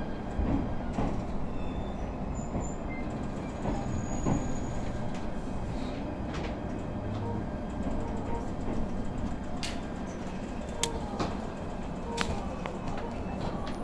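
Interior running noise of a local electric train pulling slowly into a station platform: a steady low rumble from the wheels and car, with scattered sharp clicks.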